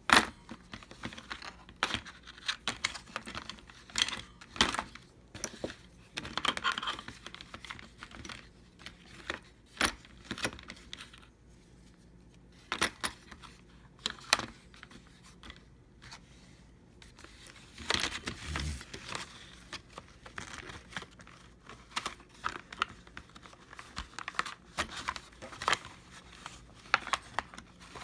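Small metal tools and bits being handled, with irregular clicks and rattles mixed with plastic packaging crinkling and tearing; a louder clatter with a thump comes about two-thirds of the way through.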